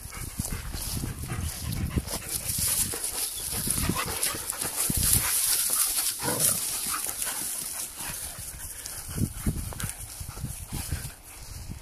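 A German Shepherd and a white dog play-fighting in grass, giving short growls and grunts in irregular bursts.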